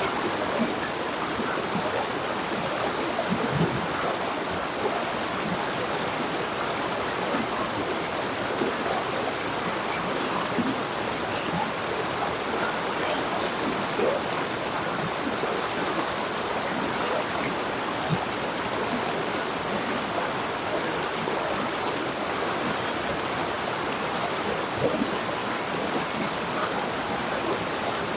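River water flowing over rocks, a steady rushing with many small splashes and gurgles.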